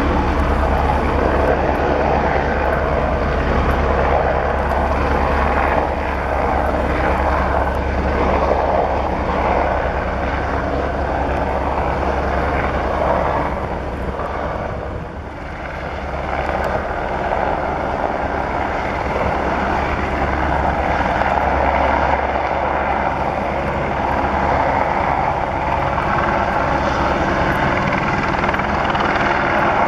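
Eurocopter AS 550 C2 Fennec helicopter flying, its main-rotor beat and turbine running steadily. The sound fades a little about halfway through, then swells again.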